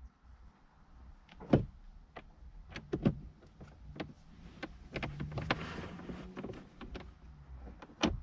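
Sharp plastic clicks and knocks, about half a dozen spaced over several seconds, as the car's fuse-box panel and glovebox are fitted back in place, with a faint low hum for a couple of seconds midway.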